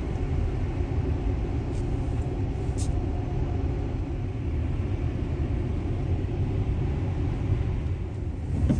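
Steady low road and tyre rumble inside the cabin of a Tesla Model X 90D electric SUV driving on a winter highway, with two faint clicks about two and three seconds in.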